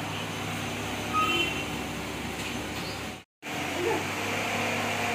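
Steady rain falling, an even hiss. It cuts out for a split second about three seconds in and then carries on.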